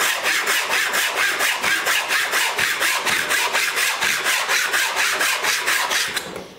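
Handsaw crosscutting a wooden board in quick, even back-and-forth strokes, about four a second, finishing the cut to length; the sawing stops shortly before the end.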